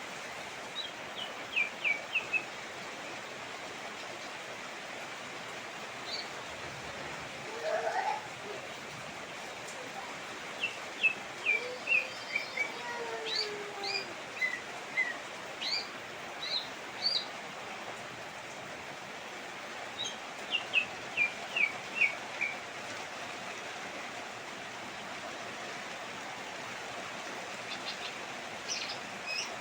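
Steady rain falling, with a bird calling over it in repeated bursts of short, quick notes that step down in pitch. A few lower, sliding calls come in between the bursts.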